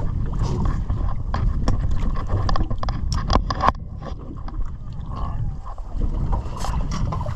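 A fishing boat at sea: a steady low rumble with scattered knocks and clicks from gear on board. The rumble drops off noticeably about halfway through.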